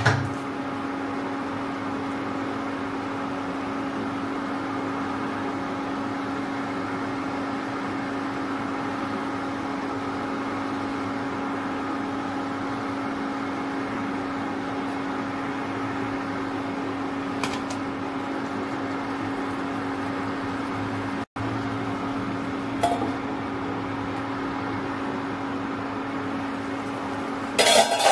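Steady electric hum of an induction cooktop, its cooling fan and coil running under a pan of curry. A few short clicks or knocks come in the second half, the loudest near the end.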